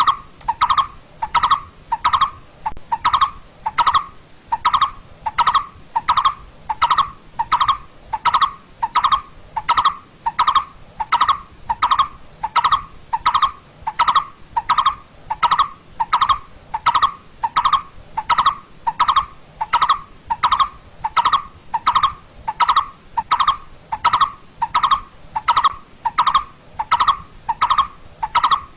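Coppersmith barbet calling: a monotonous series of short, hollow 'tuk' notes, about three every two seconds, at a steady pace and pitch throughout.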